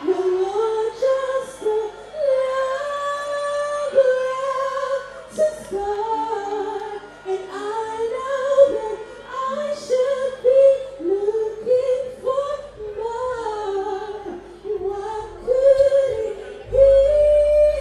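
A woman singing live into a handheld microphone, one voice carrying a slow melody. A brief low boom comes near the end.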